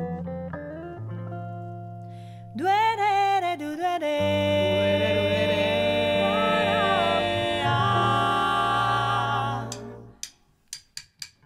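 Italian swing performance: a female vocal trio in close harmony slides up into a long held note on "destino", over acoustic guitar and double bass. The music stops near the end, leaving a few short, sharp clicks.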